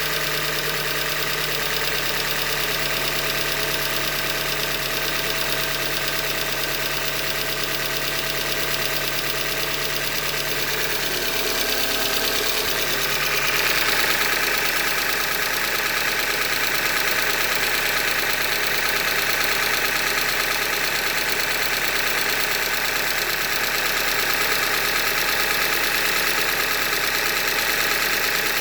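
2015 Hyundai Elantra Limited's four-cylinder engine running with a knock, the sign of the short block failure that the owner puts down to a manufacturing defect. About halfway through, the sound gets a little louder and brighter.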